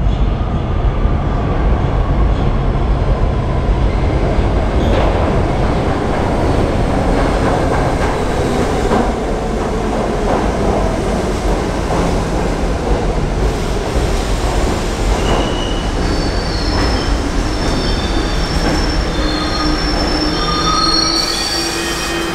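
New York City subway train pulling into an underground station: a steady rumble of steel wheels on the rails. From about two-thirds of the way through, several high-pitched wheel squeals join in as the cars pass along the platform.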